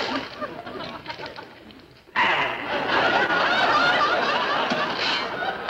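Studio audience laughing: a laugh that fades over the first two seconds, then loud laughter that starts suddenly about two seconds in and keeps going.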